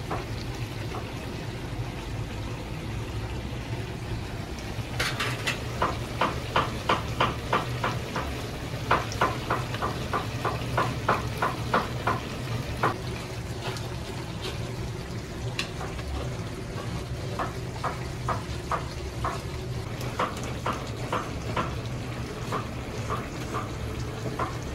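Plov zirvak cooking in a kazan under a steady low hum, with a run of light clicks about two a second from about five to thirteen seconds in, then scattered clicks.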